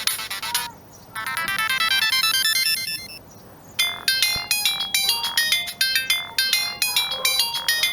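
Siemens M65 mobile phone ringtones playing one after another in crisp synthesized notes. The end of one tune gives way to a fast run of high beeping notes, then after a short pause a new melody starts over a lower line.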